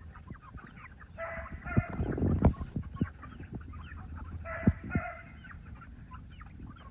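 A flock of young pullets clucking and peeping, with two louder, drawn-out squawks about a second and about four and a half seconds in, and a few sharp knocks among them.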